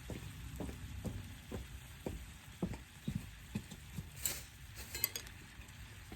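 Cooking in a pan over a fire pit: soft knocks of a utensil stirring the food, about two a second, with a couple of sharper clicks near the end over a faint sizzle.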